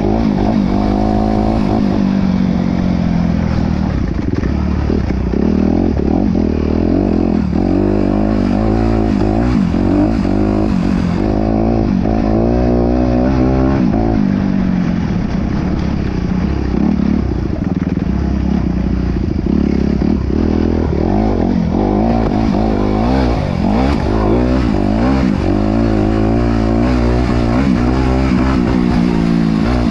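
Off-road vehicle engine being ridden hard, its pitch rising and falling over and over as the throttle is opened and closed.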